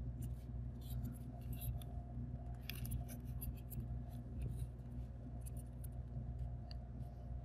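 Balsa sticks and paper handled and pressed onto a cardboard mat, with soft rustling and many small scattered clicks and taps over a low steady hum.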